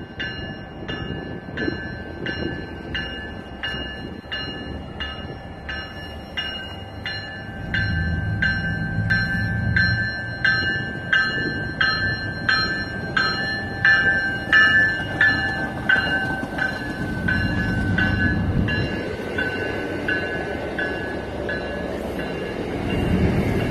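A commuter train's warning bell rings steadily at about three strikes every two seconds as the train pulls out, dropping a little in pitch about two-thirds of the way through, and stops near the end. Under it runs the low rumble of the train getting under way.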